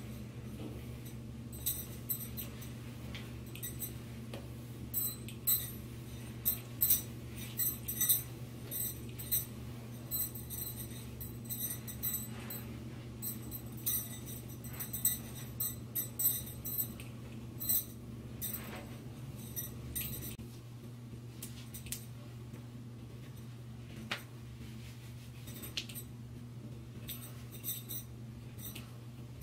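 Hands working through long wig hair, with light irregular clinks and ticks from the bracelet and rings over a steady low hum; the clinks thin out about two-thirds of the way through.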